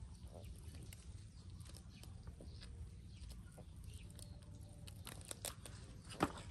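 Faint scattered clicks and rustles, as of hands working over a nylon cast net, with one sharp knock about six seconds in.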